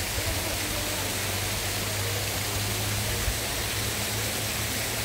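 Steady rushing hiss of waterfalls and a cascading mountain stream.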